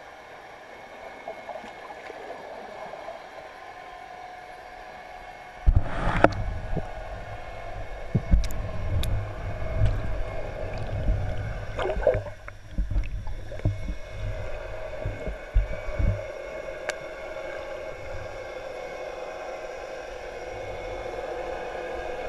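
Underwater sound heard through a GoPro Hero 3's waterproof housing: a steady muffled hiss. About six seconds in, low rumbling and irregular knocks and bumps begin as the pole-mounted camera is swung and moved through the water, with a gurgle near the middle. After about sixteen seconds it settles back to the hiss.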